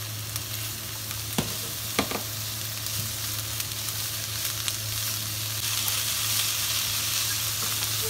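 Thinly sliced beef and onions sizzling in a hot non-stick frying pan, stirred fast with wooden chopsticks that click against the pan a few times in the first couple of seconds. The sizzle grows a little louder over the last few seconds, over a steady low hum.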